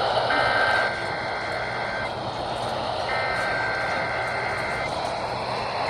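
Emergency Alert System SAME header: two-tone digital data bursts, each about two seconds long with a second's gap, two of them and a third starting at the very end, played through a radio receiver's speaker over steady static hiss from weak reception.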